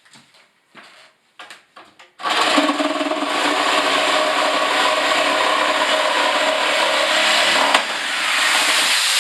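A few light knocks, then about two seconds in a power tool starts up and runs loud and steady, cutting into the shower wall during demolition.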